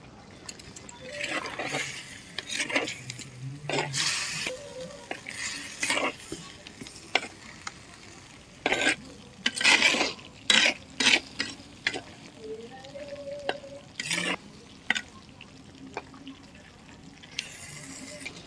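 A spatula stirring and scraping chicken leg pieces in a sizzling spice gravy in an earthenware pot, in irregular strokes over a steady low sizzle.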